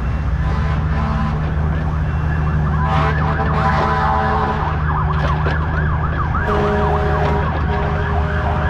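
Kubota U55 mini excavator's diesel engine running steadily under hydraulic load. From about three seconds in, a rapid high warbling squeal rides over it for several seconds.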